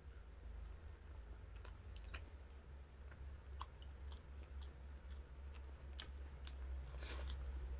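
Close mouth sounds of a person chewing food, with scattered soft wet clicks and smacks, a little busier near the end, over a steady low hum.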